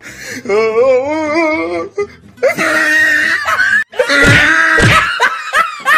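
Comic music and sound effects laid over the picture: a wailing voice whose pitch wavers up and down, then louder music with two deep thumps about four seconds in.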